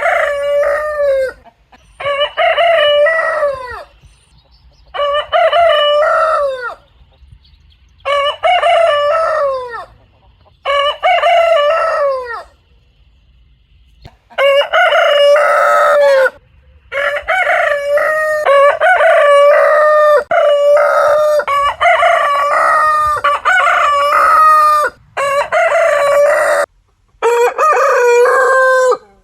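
Rooster crowing again and again, each cock-a-doodle-doo lasting about two seconds. After a short pause about halfway through, the crows come almost back to back.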